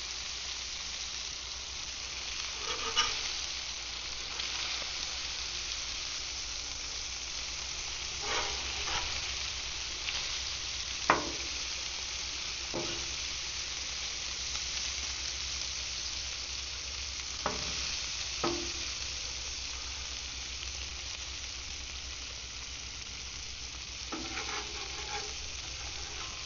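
Fish fillets sizzling steadily in melted butter on a very hot grill while being blackened. A handful of short sharp clicks and knocks break in now and then, the loudest about eleven seconds in.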